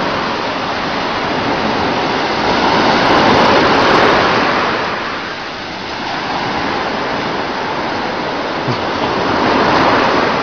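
Ocean surf: waves washing in and breaking, swelling loudest about three to four seconds in and again near the end.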